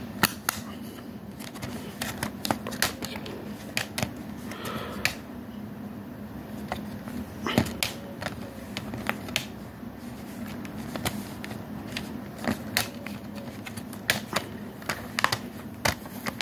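Irregular clicks and clatter of a plastic multi-disc DVD case being handled: discs pressed onto and taken from the case's centre hubs and the hinged trays moved.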